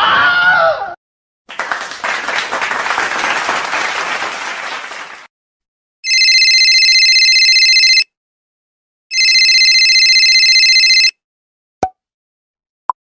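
A string of separate sound effects: a short warbling sound, then about four seconds of applause that fades out, then a telephone bell ringing twice, about two seconds each with a pause between, followed by two short clicks.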